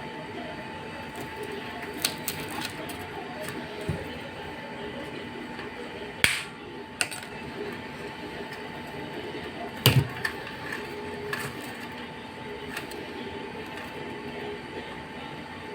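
Scattered clicks and knocks over a steady background hum, with the loudest knocks about six seconds in and again about ten seconds in, typical of hands handling tools and parts.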